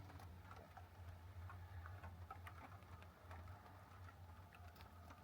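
Very quiet: scattered, irregular light ticks of the last raindrops dripping onto the small camper cabin's roof as the shower ends, over a faint low hum.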